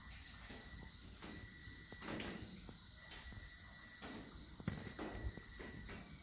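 Insects chirring steadily, a high continuous drone with a faster pulsing chirp above it at about four pulses a second, and a couple of faint knocks near the end.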